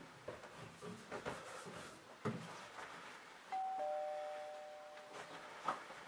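Footsteps on wooden stairs, a few heavy steps about a second apart. About three and a half seconds in, a two-tone ding-dong doorbell chime sounds, a higher note then a lower one, ringing out for about a second and a half. A couple more steps follow near the end.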